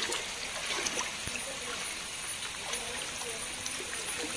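Floodwater flowing and splashing steadily.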